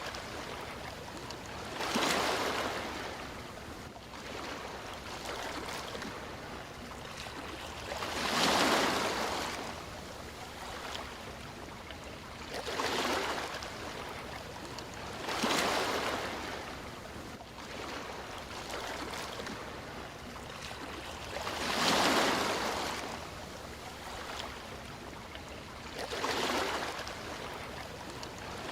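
Sea waves breaking and washing up on a shore, with a steady wash between them and louder surges every few seconds, six in all.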